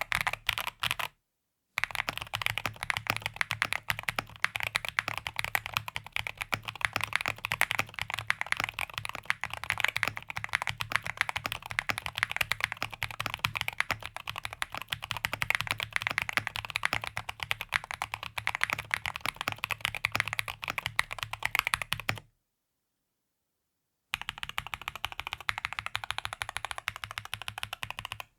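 Rexus Daxa M61/M64 mechanical keyboard being typed on fast and continuously, a dense stream of key clicks. The typing cuts out twice into dead silence, about a second in and again near the end, before resuming.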